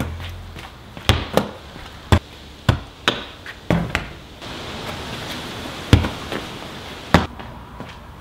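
An Australian rules football bounced on concrete paving and slapping into hands: a string of sharp, irregular thuds, some in quick pairs, with a pause of about two seconds in the middle.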